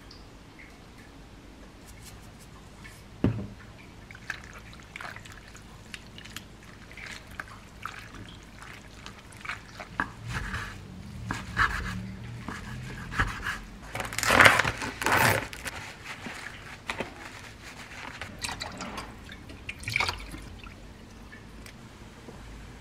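Kitchen handling of soaked wakame seaweed: water dripping and being squeezed out of it, and a knife cutting it on a wooden board, heard as scattered clicks and short wet bursts. The loudest bursts come about two-thirds of the way through.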